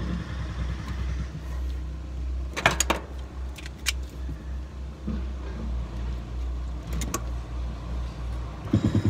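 Sharp metal clicks and clinks of wire cobra hose clamps being handled and fitted with pliers onto polypipe: a quick cluster about a third of the way in, then single clicks, over a steady low rumble. A low rhythmic throbbing starts near the end.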